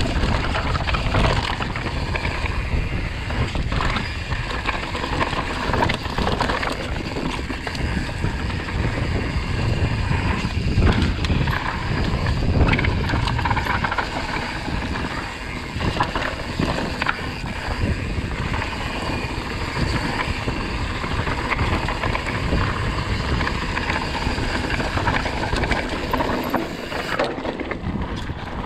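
Steady wind and road noise rushing over the microphone during a ride, with a heavy low rumble.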